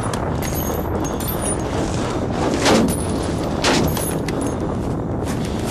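Gunfire at night: two loud shots about a second apart near the middle, over a steady rushing noise.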